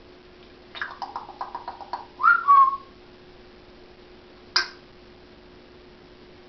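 African grey parrot making a quick run of clicks, about eight a second, then a short, loud whistle that rises and then drops a little. A single sharp click-like chirp follows a couple of seconds later.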